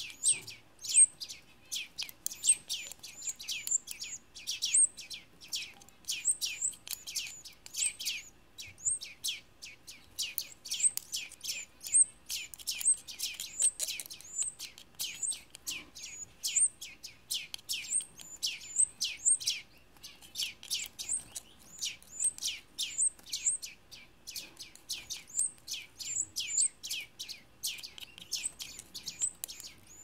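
Canary nestling begging to be fed: rapid high chirps, several a second, kept up without a break while it gapes for hand-feeding.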